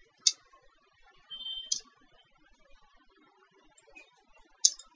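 Three sharp computer mouse clicks, about a third of a second in, near the two-second mark and near the end. A faint high whine comes just before the second.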